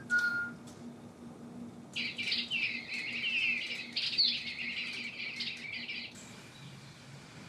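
Electronic toy songbirds chirping: a short whistled note at the start, then a burst of rapid, high chirping that starts suddenly about two seconds in and stops abruptly some four seconds later.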